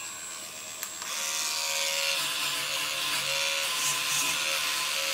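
Amtech V2546 3.6 V USB mini engraver's small motor running at its lowest speed setting, about 5,000 rpm, with a nylon brush fitted: a steady whine. After a click about a second in, a louder hiss joins it as the spinning bristles brush over a laptop's keys.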